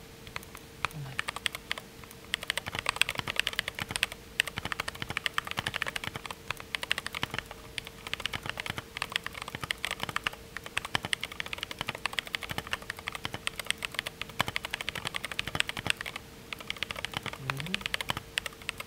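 Fast continuous typing on a stock GMMK Pro mechanical keyboard with unlubed Glorious Panda tactile switches: a dense, uneven run of key clacks with no break.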